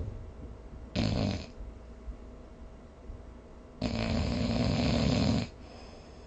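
A sleeping person snoring: a short snore about a second in, then a longer snore of about a second and a half.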